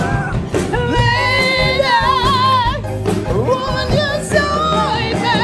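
Male rock-ballad singing: long, very high held notes with vibrato over a full band backing, in a power-ballad style.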